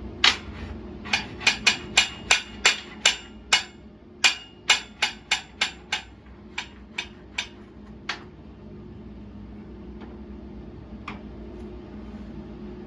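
A hammer striking steel in a quick run of sharp, ringing blows, about three a second, that then slows to a few scattered strikes.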